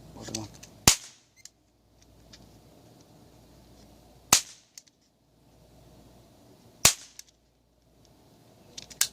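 Cap gun firing four single shots, each a sharp crack, spaced about two to three and a half seconds apart.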